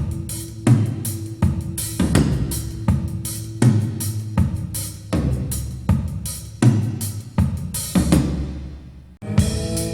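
Music with a drum-kit beat played through hi-fi bookshelf speakers, with kick, snare and cymbal hits about every three-quarters of a second. Near the end the music fades, drops out for a moment and starts again.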